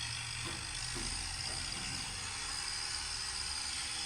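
Diesel tractor engine running steadily, a constant low rumble under an even hiss.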